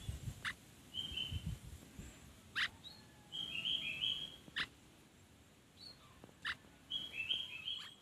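A striated swallow perched on a hand chirps short, high twittering notes in little bursts of several notes. Four sharp clicks come about two seconds apart, with a low rumble on the microphone in the first second or so.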